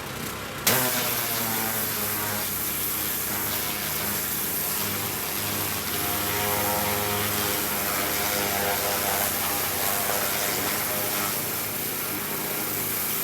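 Pressure washer running steadily, its motor hum under the hiss of the spray as it blasts dirt and old undercoating off a truck frame. The sound jumps louder just under a second in.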